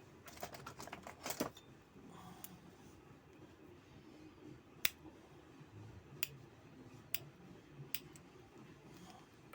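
Small sharp clicks and snips of a hand cutting tool on a hair dryer's power cord as it is cut back: a quick run of clicks near the start, then four single sharp clicks a second or so apart.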